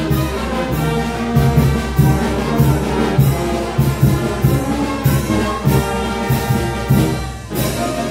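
Oaxacan regional wind band of clarinets, saxophones and brass playing live, with sustained notes over a steady percussive beat. The sound thins briefly near the end, then the full band comes back in.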